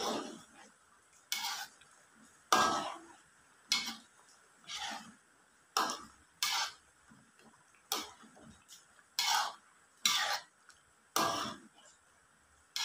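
A metal ladle stirring simmering fish curry in a metal wok, scraping and clinking against the pan in short strokes about once a second.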